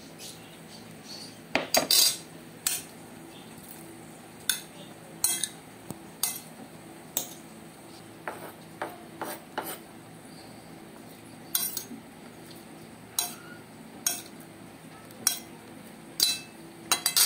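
Metal utensils clinking against a plate as a fiddlehead fern salad is tossed: irregular sharp clinks, a quick cluster of louder ones about two seconds in.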